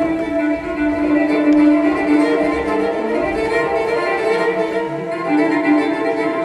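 Bowed string music led by violin, playing long held notes.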